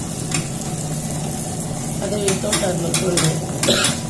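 Table-top wet grinder running with a steady motor hum, its stone rollers churning and scraping wet batter of soaked dal and rice in the steel drum. Near the end water is splashed in from a steel cup, with a few clinks.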